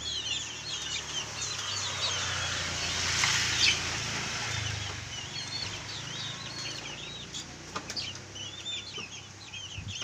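A cage of young chickens peeping, many short high cheeps overlapping. A brief louder rush of noise comes about three and a half seconds in.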